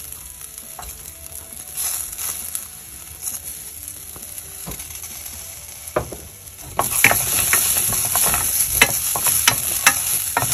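Split moong dal sizzling as it roasts in ghee in a steel pressure cooker, with a wooden spoon scraping and clicking against the pot. The sizzle is quieter for the first several seconds; about seven seconds in the stirring starts again and it gets louder, with quick scrapes and clicks.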